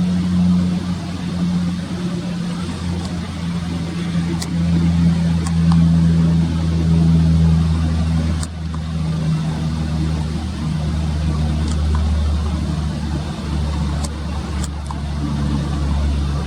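Steady low drone of a vehicle engine, its pitch wavering slightly, with a few faint ticks.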